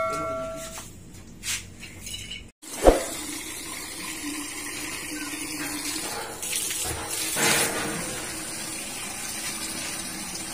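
A ringing notification chime that fades out in the first second, a sharp knock about three seconds in, then liquid pouring steadily into a plastic knapsack sprayer tank as an insecticide spray mix is made up.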